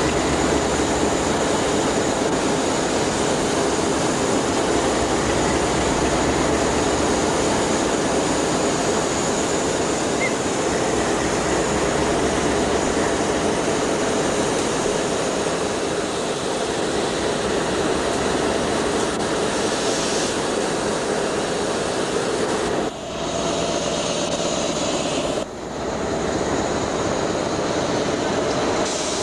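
Diesel locomotive engine running with a steady, loud drone, briefly dipping twice near the end.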